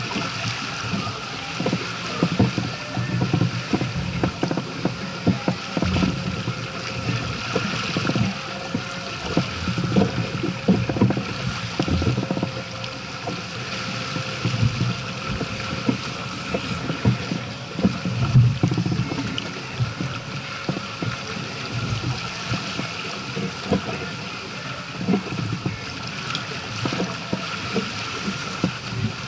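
Water rushing and slapping along the hull of a sailing yacht under sail, with irregular low thuds from wind on the microphone and a faint steady high tone.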